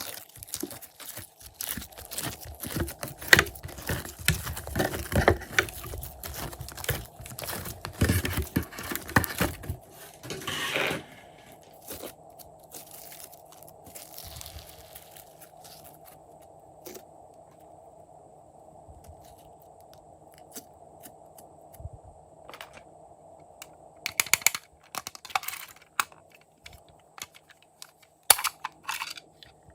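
Slime being worked by hand, crackling and popping densely for about ten seconds. Then it goes quieter, with two short bursts of crackling near the end.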